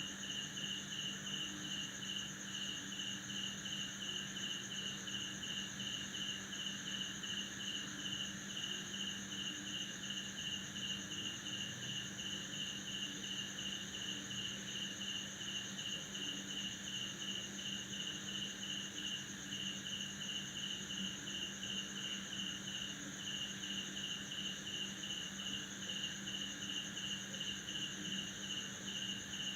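Night chorus of crickets: one chirping in an even rhythm of about three pulses a second over a continuous high trill from others. Frogs croak faintly and steadily underneath.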